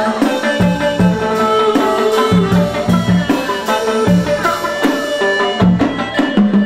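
Chầu văn ritual music: a drum beat under plucked string and held melodic notes.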